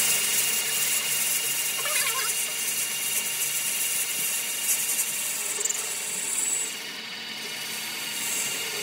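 Metal lathe turning the hub of a cast tractor differential gear body, the tool bit cutting steadily with a hiss and a thin high whine, easing a little about seven seconds in.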